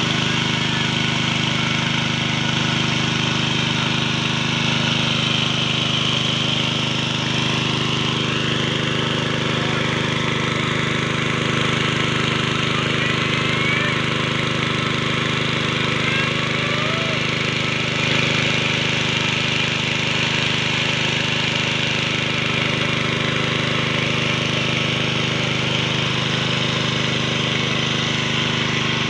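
A water pump's engine running steadily with an even, unchanging hum, feeding water down the hose into a hand-turned well-boring pipe.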